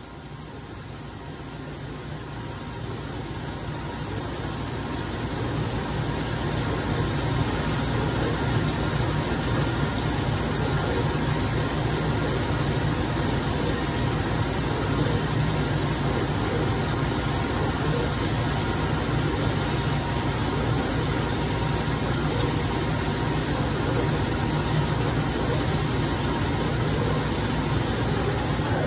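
CNC vertical mill cutting a long bar under flood coolant: a steady mix of machining noise and coolant spray. It swells over the first several seconds, then holds level.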